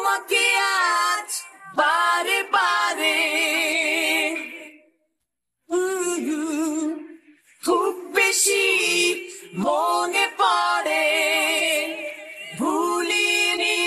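A solo male voice singing a Bengali song, the lead vocal isolated with no band behind it: long, high phrases held with vibrato, broken by short pauses and a brief total silence about five seconds in.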